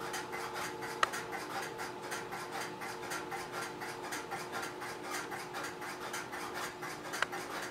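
Steady electrical hum of running telephone key-system equipment, with a fast, even pulsing hiss and two faint clicks, about a second in and near the end.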